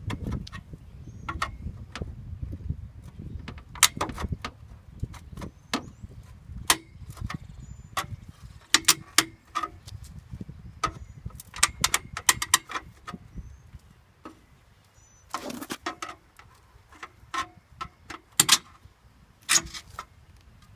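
A hub cap being pried off a 1988 Ford Crown Victoria's wheel: a long run of irregular sharp metal clicks, taps and scrapes. A low background rumble dies away about two-thirds of the way through.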